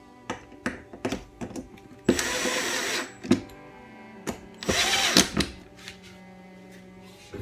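A power drill-driver runs twice, each time for about a second, driving screws for a smoke alarm's mounting base; the second run speeds up and slows down. Short clicks and knocks of handling come between the runs.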